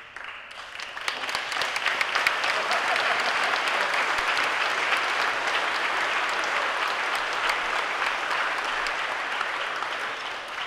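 Crowd applauding, the clapping swelling over the first second or two, holding steady, then easing off near the end.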